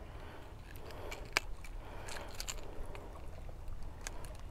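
Fishing pliers clicking against a crankbait's hooks while unhooking a small bass: a few faint, sharp clicks, the sharpest about a second and a half in.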